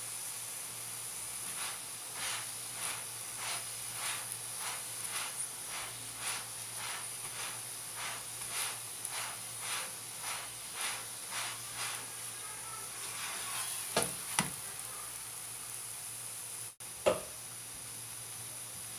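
Methi paratha frying in oil on a non-stick pan, sizzling steadily, with regular bursts a little under two a second as a silicone spatula presses it down. After the pressing stops, the spatula clacks sharply against the pan twice, and once more a few seconds later.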